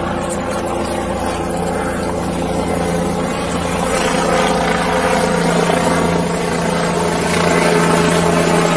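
Helicopter flying over the search area, a steady droning hum that grows a little louder near the end.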